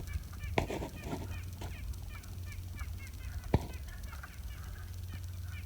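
Chorus of wood frogs giving many short, overlapping, duck-like clucking calls in quick succession. Underneath is a steady low rumble, and two sharp clicks come about half a second in and, louder, about three and a half seconds in.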